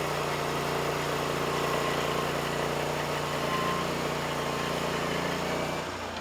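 Portable band sawmill's engine running steadily at high throttle with the band blade turning. Near the end the engine drops back in pitch and level, as it does when the operator control is released.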